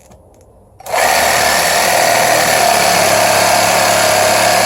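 Mereced 20V cordless reciprocating saw with a brushed motor and its general-purpose blade, cutting through a 1x2 wood stick at an angle. The saw starts about a second in and then runs steadily.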